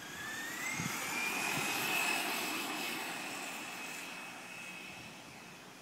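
Two RC trucks, a Traxxas Slash and a Rustler, racing past: a high motor whine that rises in pitch over the first second or so, is loudest about two seconds in, then fades as they drive off.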